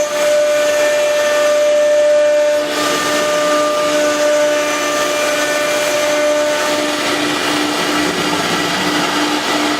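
A CNC router running: a steady, loud machine whine over a hiss. Its pitch shifts about three seconds in.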